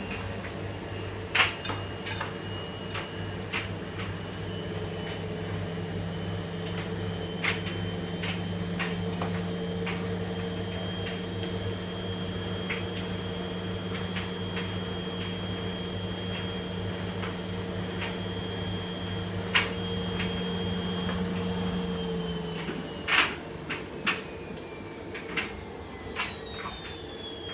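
Washing machine on its spin cycle: a steady motor whine with a low hum and scattered sharp knocks. About 22 seconds in the whine starts falling in pitch as the drum winds down.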